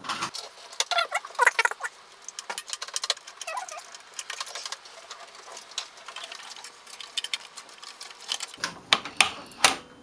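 Graphics card packaging being handled and opened: irregular rustling and crinkling with many small clicks and taps, a few sharper clicks near the end.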